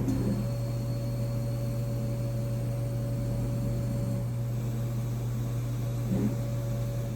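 CO2 laser cutter running while engraving and cutting leather: a steady low hum from its fans and air pump, with a steady whine over it that sets in just after the start and stops near the end.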